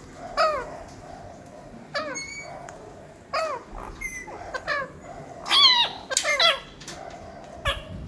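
Parrots calling: a series of short, harsh squawks, each bending up and then down in pitch, about seven in all, the loudest a little past halfway.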